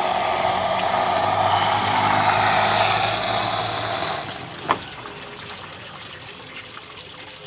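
Electric pond water pump running with a steady low hum and rushing water. It drops away about four seconds in, followed by a single click.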